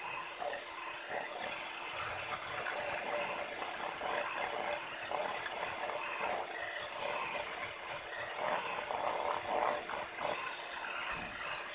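Electric hand mixer running steadily, its beaters whipping raw egg whites in a stainless steel bowl until they turn foamy.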